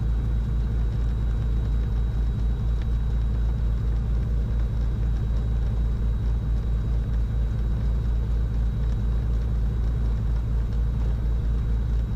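Cessna 310's twin piston engines running steadily at low power on the ground, a constant low drone.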